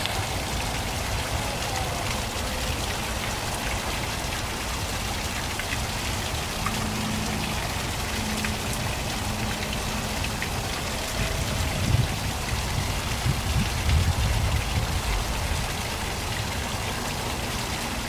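Small garden waterfall splashing down a rock grotto wall: a steady rush of falling water. A few low thuds come in about twelve to fifteen seconds in.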